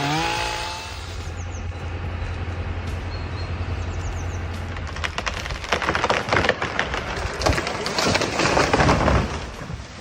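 A motor's pitch drops to a low steady hum. About five seconds in, wood cracks and splinters in a dense run of sharp snaps lasting about four seconds, as a cut tree gives way and falls.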